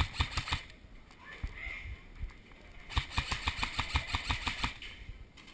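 Airsoft gun firing in rapid strings of shots, about six a second: a short string at the start and a longer string of about ten shots from about three seconds in.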